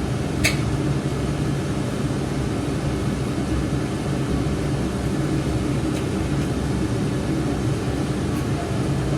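Steady low mechanical hum of a running motor, with one short click about half a second in.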